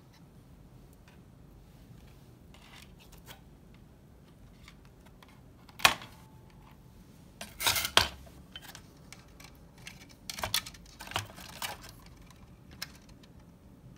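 Hard plastic and circuit-board handling noises from a disassembled CD player: a sharp knock about six seconds in, a short rattling clatter around eight seconds, then a few lighter clicks and knocks.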